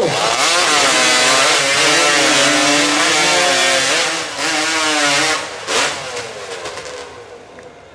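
Two racing chainsaws, started from cold, run at full throttle as they cut through logs. The engine pitch wavers up and down as the chains bite into the wood. About five and a half seconds in the cuts finish, and after one short rev the saws drop away and fade.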